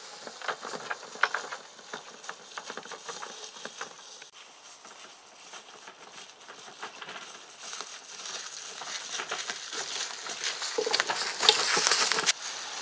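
Footsteps and the rubber wheels of a heavy wooden chuck wagon, tilted back and wheeled like a dolly, crunching and rustling over grass and dry fallen leaves. It grows louder toward the end as the wagon comes up close.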